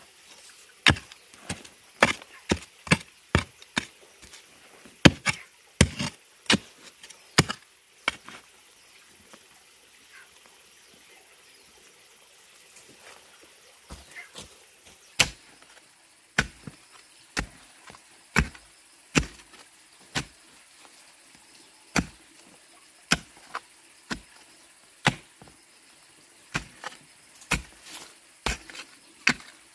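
Repeated sharp chopping blows on wood: a quick run of strikes, a pause of about five seconds, then steadier blows roughly one a second.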